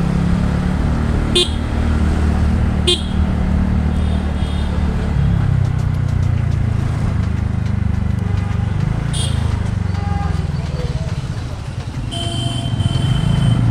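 Motorcycle riding in city traffic: a steady low engine and road rumble, with a few short horn toots and a longer held honk near the end.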